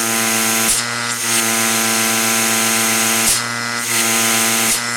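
GAST 2067 rotary vane pump, driven by a 1.5 hp Baldor electric motor, running as an air compressor at about 30 psi: a steady motor hum and whine under a loud rushing hiss of air. The hiss drops back briefly a little under a second in and again past the three-second mark, then returns.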